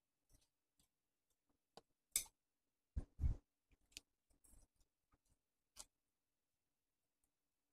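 Faint handling sounds of artificial rose stems being picked up and pushed into a bouquet holder: scattered soft clicks and rustles, with a sharp tick about two seconds in and a dull knock just after three seconds.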